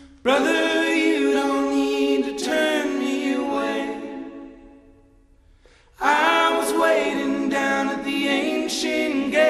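Background music: unaccompanied voices singing together in two phrases. The first fades out about four seconds in, and after a short pause the second begins about six seconds in.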